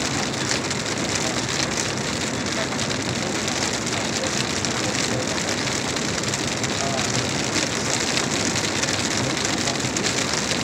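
Steady rain on the windshield and roof of a moving car, heard from inside the cabin, mixed with tyre hiss on the wet road.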